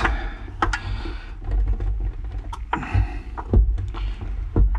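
Scattered clicks, knocks and short rustles of a plastic fuel pump assembly being handled and worked into the fuel tank opening, over a low rumble.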